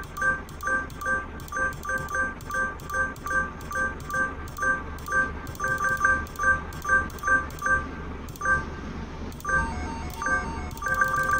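Car auction bidding software on a laptop beeping in short two-tone electronic pips, two or three a second, as bids push the prices up. The beeps thin out and a lower-pitched set of tones sounds briefly, then the pips come thick and fast near the end.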